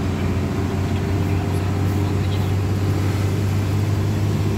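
Steady low drone of a vehicle's engine and road noise, heard from inside the cabin while driving.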